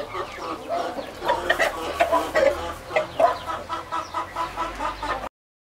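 Blue Australorp chickens clucking over food, short calls coming quicker near the end, with sharp clicks as they peck at greens. The sound cuts off suddenly shortly before the end.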